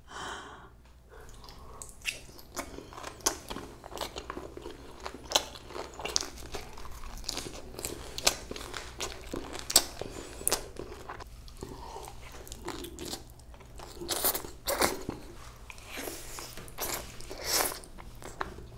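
Close-up eating sounds: a person chewing food with crisp crunching bites and wet mouth clicks, over a steady faint low hum.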